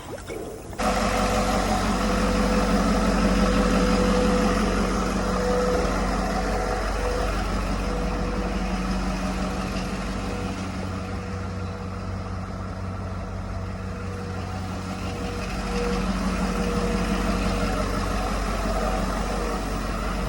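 Ford 6.7L Power Stroke V8 turbo-diesel comes on about a second in and idles steadily on its first run after all eight injectors were replaced and programmed. It started only after long cranking to get fuel into the system.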